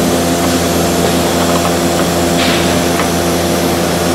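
Steady machine hum with several fixed pitches, like a shop fan or compressor running. Over it come a few light ticks and a short scrape about two and a half seconds in, from a wrench working the rusty brake line fitting on the rear caliper.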